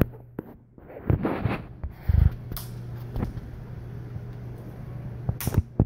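A few sharp knocks and thumps, the heaviest a low thump about two seconds in and a quick pair of clicks near the end, over a steady low hum.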